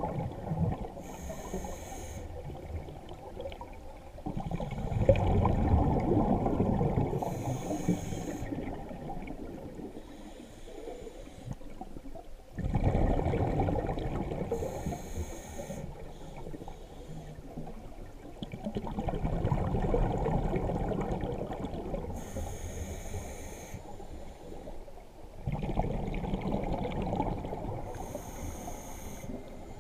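Scuba diver breathing through a regulator underwater: five short hissing inhalations through the demand valve, about seven seconds apart, each followed a few seconds later by a long gurgle of exhaled bubbles.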